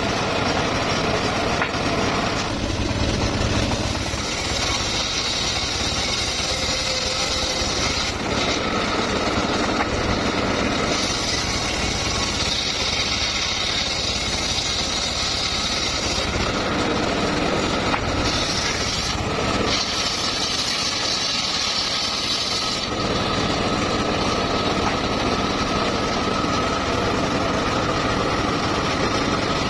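Engine-driven sawmill running steadily while its blade cuts mahogany. A higher hiss of the cut comes and goes several times over the engine's steady drone.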